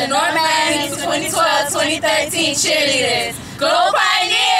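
A group of cheerleaders' voices calling out together in unison, in a sing-song way, with a brief break about three and a half seconds in.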